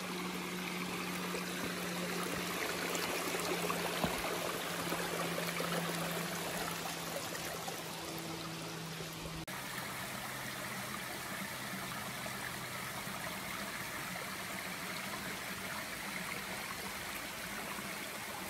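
Small rocky mountain creek running over stones and a little cascade: a steady rush of water. A faint steady hum sits under it until a change in the sound about nine seconds in.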